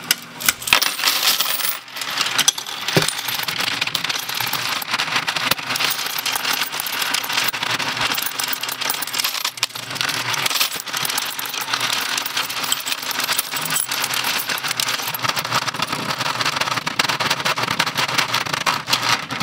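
Royal Sovereign FS-500 electric coin sorter running: a cupful of mixed coins poured into its hopper at the start, then a steady, dense rattling and clinking as the coins are sorted and drop into the denomination tubes.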